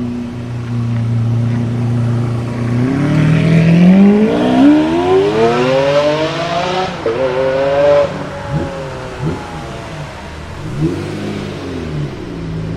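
A supercar engine running steadily, then revving up hard as the car pulls away, with the pitch climbing for several seconds before falling off. Several quick throttle blips follow near the end.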